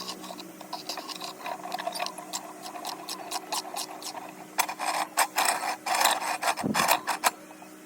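Irregular clicks and light taps, sparse at first, then coming thick and fast from about five seconds in until shortly before the end.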